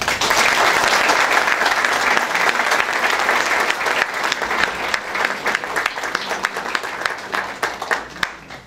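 Audience applauding. It starts at full strength and thins to scattered claps near the end.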